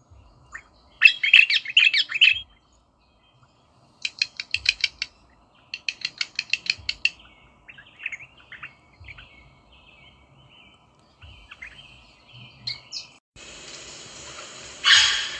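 Rosella parrots calling: a burst of chattering calls, then two runs of rapid repeated notes at about ten a second, with softer scattered calls after them. Near the end a steady hiss comes in and a louder call sounds.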